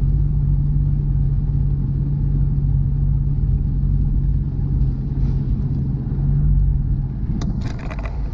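Steady engine and road rumble from a car driving on the highway, heard from inside the car. A steady hum fades out about seven seconds in.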